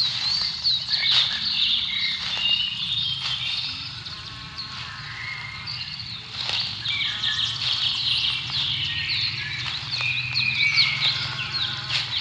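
Several birds singing at once: a dense chorus of short chirps and trills overlapping without pause, over a steady low rumble.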